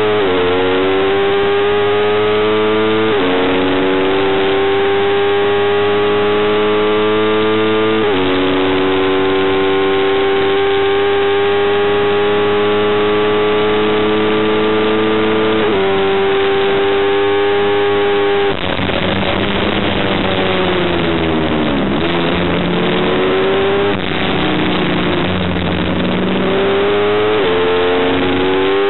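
Racing motorcycle engine at high revs, heard from a camera on the bike: three upshifts, each a sudden drop in pitch followed by a slow climb. About two-thirds through the throttle closes and the pitch falls through downshifts, then the engine accelerates again and shifts up once more near the end.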